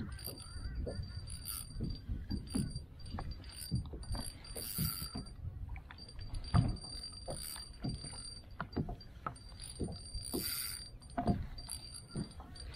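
Water slapping against a fishing kayak's plastic hull with wind, and irregular knocks and clicks from the kayak and the spinning reel while a hooked fish is being played.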